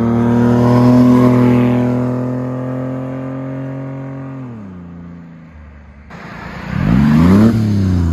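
Honda Acty kei van with a GIGA N1 aftermarket exhaust driving past. The engine note holds steady, then drops in pitch and fades as the van goes by. After a cut, a louder second pass rises and then falls in pitch: a quiet but racy exhaust tone.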